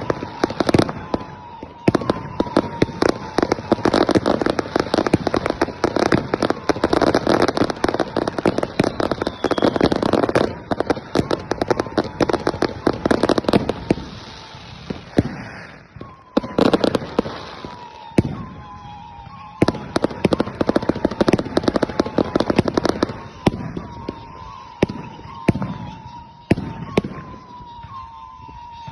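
New Year's Eve fireworks: firecrackers and rockets going off in a dense, rapid string of bangs and crackles. The bursts are heaviest in the first half and come in sparser volleys later, with a wavering tone recurring underneath.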